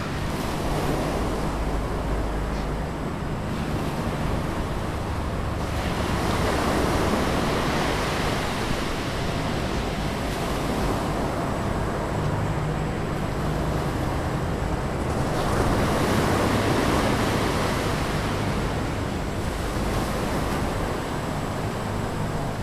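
Ocean waves washing on a shore: a steady rush of surf that swells twice, about a third of the way in and again past the middle, then eases back.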